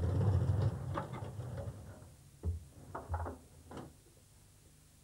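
A metal folding loft ladder being pulled down out of an open ceiling hatch: a scraping slide for about two seconds, then a few separate clunks as it comes down and settles.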